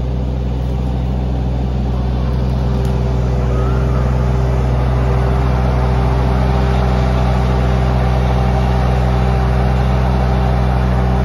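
Red compact tractor's diesel engine running steadily under work, growing louder over the first few seconds as the tractor comes up close.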